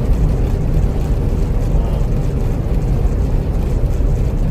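Steady low drone of a semi truck's diesel engine and road noise heard from inside the cab at highway speed.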